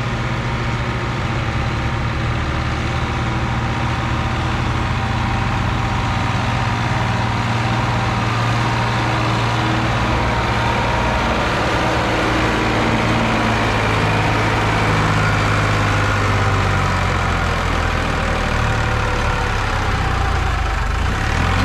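Sonalika tractor's diesel engine running steadily under load as it pulls a heavily loaded soil trolley up a sandy rise, growing slightly louder in the second half.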